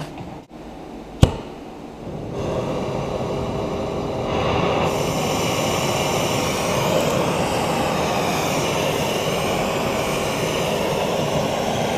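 Oxy-fuel torch burning with a steady rushing hiss while it heats the factory rubber subframe bushings to get them out. A sharp click comes about a second in, and the torch noise starts about two seconds in and grows louder around four seconds.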